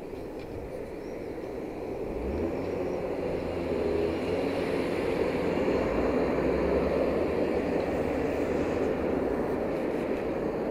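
Road traffic on a city street: a passing car's engine hum and tyre noise swell up about two seconds in, are loudest around the middle, then fade slowly.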